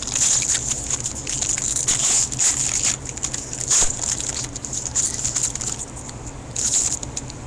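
Crinkling and rustling of a baseball card pack's foil wrapper being torn open and handled, in irregular crackly bursts.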